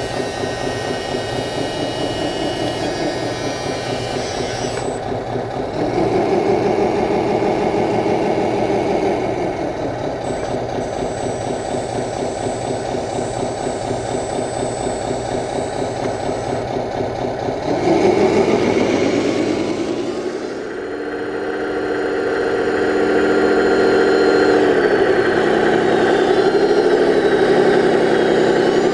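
Electronic sound module of a 1/14-scale RC Scania 8x8 dump truck playing a diesel truck engine running with a fast, even beat. It revs up about six seconds in and settles back. It revs again sharply near eighteen seconds, dips, then climbs and wavers as if under load.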